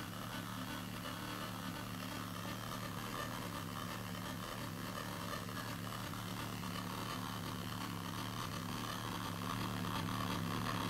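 Circuit-bent electronic sound played through a cluster of loudspeakers: a steady drone of several held tones with a hiss over it, slowly getting louder toward the end.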